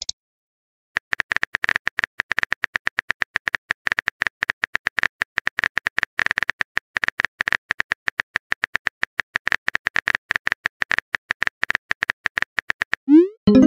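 Rapid keyboard-typing clicks from a texting app's sound effect, several a second and unevenly spaced, as a message is typed out. Near the end, a rising whoosh and a short chime mark the message being sent.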